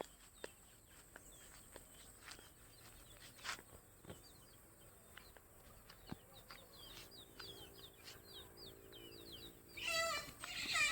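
Small high bird chirps repeating quickly at a low level. Then, near the end, a chicken suddenly starts calling loudly with clucks.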